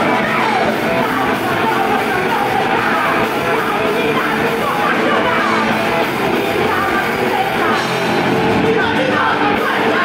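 Live punk rock band playing: electric guitars, bass guitar and drum kit, with shouted singing over them.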